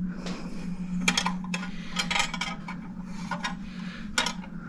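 Parts of a French crystal regulator clock's case clicking and clinking as they are handled and taken apart: a string of short, sharp knocks, with a cluster about two seconds in and a last click near the end.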